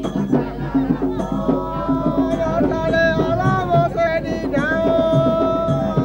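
Chao Le folk song: voices singing a drawn-out, wavering melody over a steady, quick beat of hand drums.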